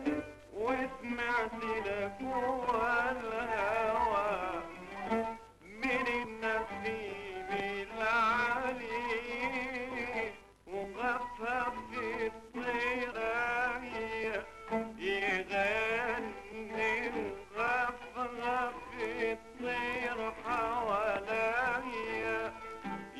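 Arabic song: a singer's wavering, ornamented melody over instrumental accompaniment, with brief breaks between phrases.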